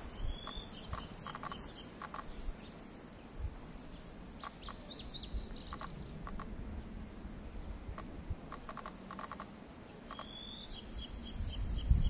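Male lazuli bunting singing: three short, high songs of quick down-slurred notes, one at the start, one about four seconds in and one near the end, over a faint low background rumble.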